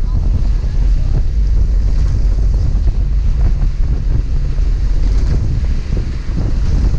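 Strong wind buffeting the microphone in a steady low rumble, over the wash of waves against a small boat's hull.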